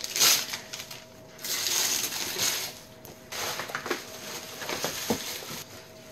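Christmas wrapping paper being torn off a gift box and tissue paper crinkling, in three bursts of tearing and rustling.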